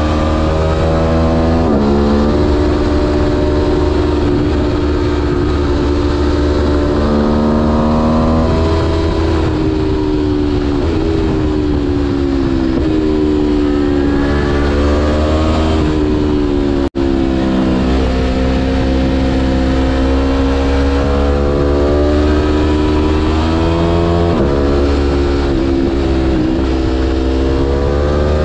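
Aprilia Tuono V4 Factory's V4 engine under way, its pitch climbing and falling over and over as the bike accelerates and slows, with sudden drops at the gear changes. Steady wind rush covers the microphone, and the sound cuts out for an instant about two-thirds of the way through.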